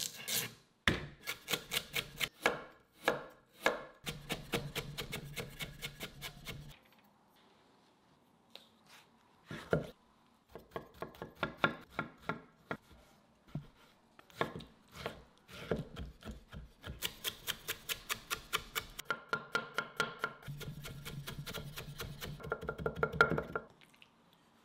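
Chef's knife chopping celery and then a peeled tomato on a wooden cutting board: quick runs of crisp cuts knocking on the board, broken by a pause of a few seconds in the middle.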